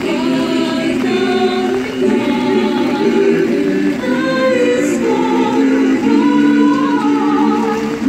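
High school choir singing in several-part harmony, with long held notes.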